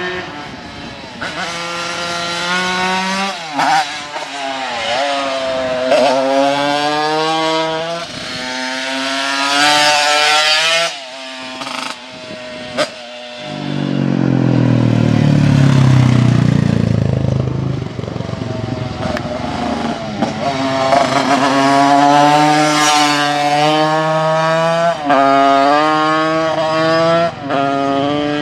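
Simson moped's tuned 100 cc two-stroke single-cylinder engine revving hard while riding, its pitch climbing through each gear and dropping at each shift. For a few seconds in the middle there is a lower, fuller engine sound.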